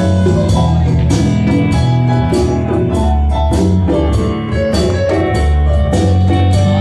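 A live band playing an upbeat tune: electric guitars and bass over a steady drum-kit beat, with hand drums.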